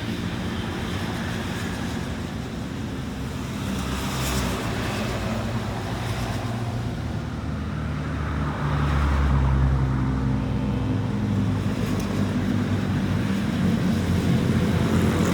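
Road traffic running past at a toll gate, a steady mix of engine hum and tyre noise. A heavy vehicle's low engine drone grows louder about eight to nine seconds in.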